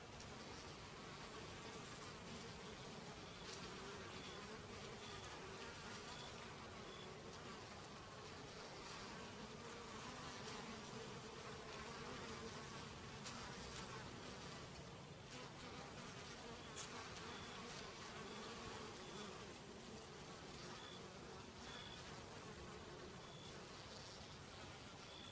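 Honeybees buzzing steadily at close range, a continuous drone that wavers slightly in pitch as they fly around a honey feeding spot.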